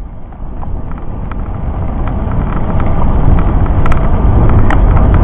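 Wind buffeting the microphone of a camera riding on a moving bicycle, a low rushing noise that grows steadily louder as the bike picks up speed, with a few sharp clicks from the bike or camera mount.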